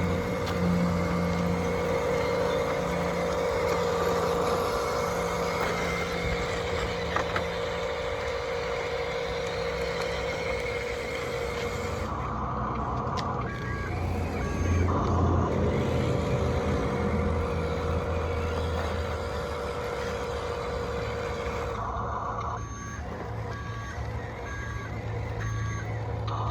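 Radio-controlled model construction trucks running with a steady mechanical hum, and a truck's reversing beeps sounding about once a second in two spells, midway and near the end.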